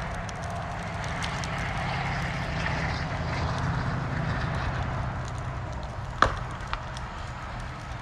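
A burning pickup truck crackling, over a steady low vehicle rumble. A sharp pop comes about six seconds in, then a smaller one half a second later.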